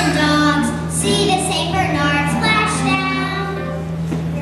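Children singing a song, with a steady low hum underneath.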